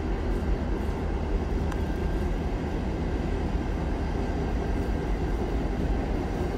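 NSW 42 class diesel-electric locomotive's EMD two-stroke V16 engine running steadily, a low, even engine sound as the locomotive moves slowly along the platform.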